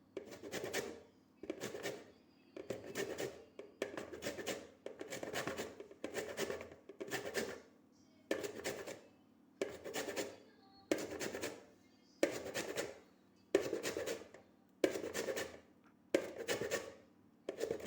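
Lemon rind being rubbed down a fine hand grater in regular rasping strokes, about one a second, grating off only the yellow zest.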